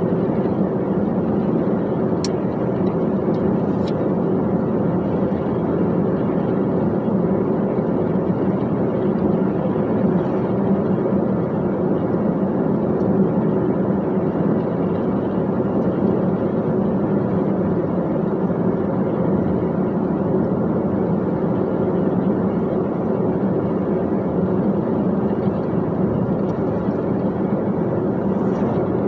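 Dump truck driving along, its engine and tyre noise making a steady, even drone with no change in pitch.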